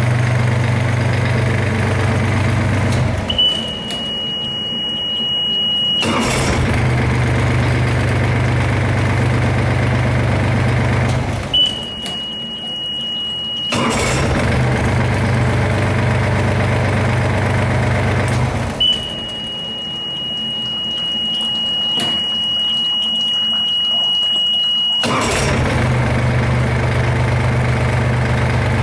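Yanmar D36 diesel outboard idling steadily. Three times it goes quiet, for about three, two and six seconds, while a steady high-pitched warning beep sounds. Each time the beep stops, the engine is running again.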